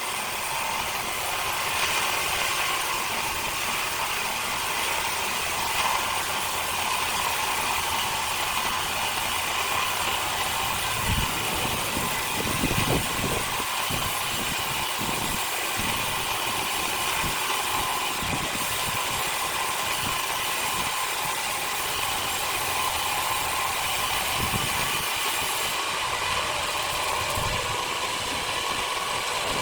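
Machinery running steadily, with a few low knocks about eleven to thirteen seconds in.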